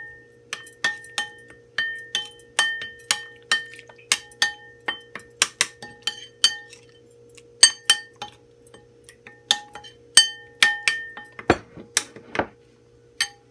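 Metal spoon clinking against a ceramic bowl again and again while stirring a wet masala spice paste, a ringing clink about twice a second. Two duller knocks come near the end.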